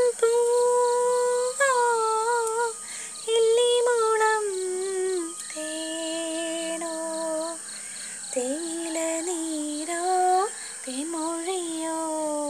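A woman singing a slow song to a toddler, in long held notes that slide from one pitch to the next, with short breaks between phrases.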